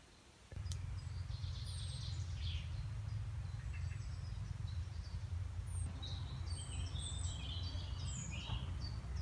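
Woodland birds chirping and calling in short high phrases, over a steady low rumble that starts abruptly about half a second in.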